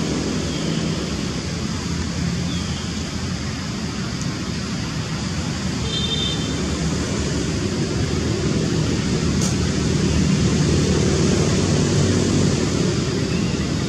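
Steady background noise with a faint low hum underneath, and a brief faint chirp about six seconds in.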